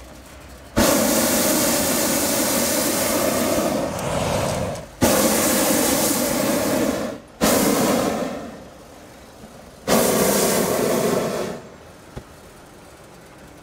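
Hot-air balloon's propane burner firing in four blasts at lift-off, each starting and stopping abruptly. The first, about a second in, lasts some four seconds; two shorter blasts follow almost back to back; a last blast of under two seconds comes near the end.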